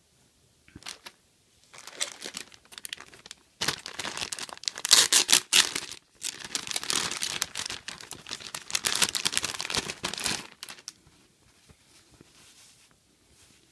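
Clear plastic packaging bag crinkling and tearing as it is handled and opened, in irregular bursts from about a second in. It is loudest in the middle and dies away a few seconds before the end.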